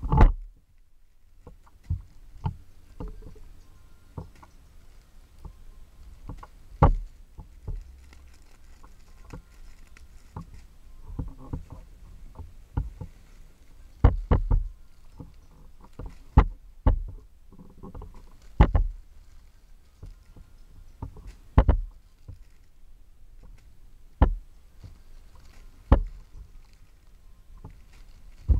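Squishy toys in plastic bags being handled and set down on a pile: plastic rustling with sharp taps and knocks every two or three seconds.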